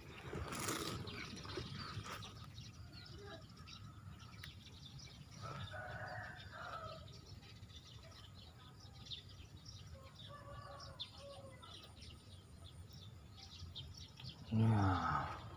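Outdoor ambience with a short burst of noise at the start, then two short bird calls, about six and ten seconds in.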